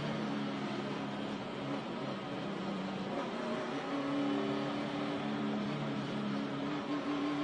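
NASCAR Cup car's V8 engine (a 2012 Dodge), heard from an onboard microphone on the car, running at speed on the track. The engine note rises gradually over the few seconds.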